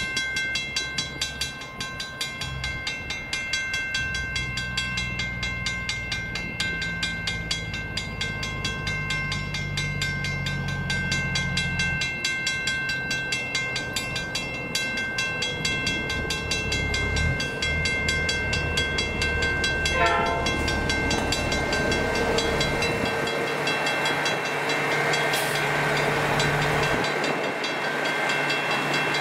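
Western Cullen Hayes mechanical crossing bell ringing with rapid, even strikes while the level crossing signals are active. Underneath, the low sound of an approaching diesel locomotive comes and goes.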